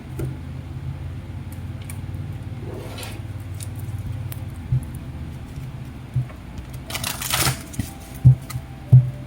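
Tarot cards being handled: a few light taps and a brief swish of cards sliding, over a steady low hum.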